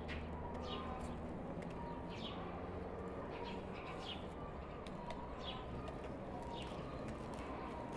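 Birds calling around the yard: short falling chirps, about one or two a second, over a steady background hum.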